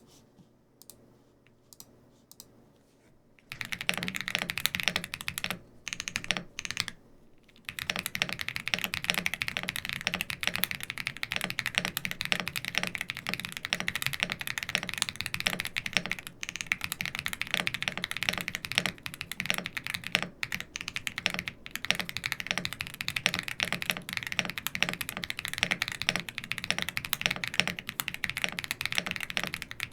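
Typing on a Bridge75 mechanical keyboard fitted with Haimu Navy Jade tactile switches and all its foams installed: rapid, continuous keystrokes. The typing starts about three and a half seconds in, thins out briefly a few seconds later, then runs on steadily.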